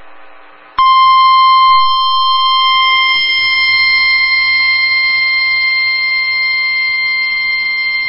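NOAA Weather Radio warning alarm tone: after a brief quiet gap, a single loud, steady beep near 1 kHz starts about a second in and holds unbroken. It is the alert signal that a flood warning message is about to be read.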